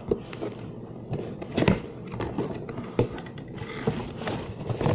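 Handling of a gift box and its packaging: light rustling with scattered clicks and a few sharper knocks, the loudest about a second and a half in and again about three seconds in.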